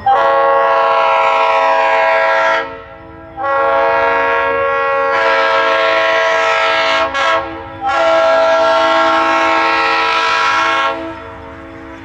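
Leslie RS3L three-chime locomotive air horn sounding two long blasts, a brief short one and a final long blast, the grade-crossing signal of an approaching train.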